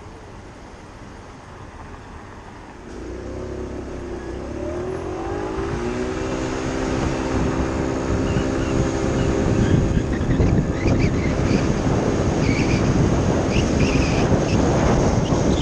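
Kymco Agility City 50's four-stroke 50cc scooter engine idling quietly, then about three seconds in the throttle opens and it pulls away, its note rising and then holding steady as the belt-driven variator takes up. Wind noise on the microphone and road noise build as speed rises.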